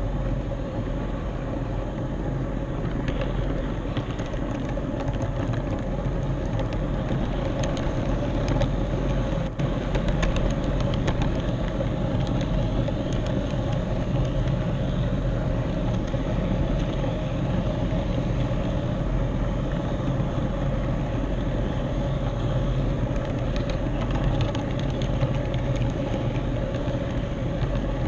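HO scale model train running along the track: a steady motor whir and wheel-on-rail rumble with faint scattered clicks, carried through the train the camera rides on.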